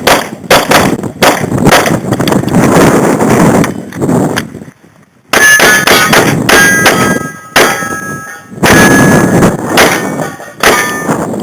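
Rapid strings of pistol shots from a Glock 22 in .40 S&W with full factory loads, fired during a timed IDPA stage. There is a brief pause of under a second near the middle. In the second half, ringing metallic tones follow many of the shots.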